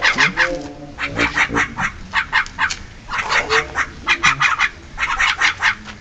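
Javan mynas calling: bouts of harsh, rapid chattering notes, about eight a second, repeated several times with short pauses between.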